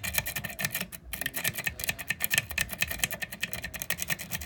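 A pick rake scrubbed rapidly in and out of a pin-tumbler lock under light tension, the pins clicking and rattling in quick, uneven succession.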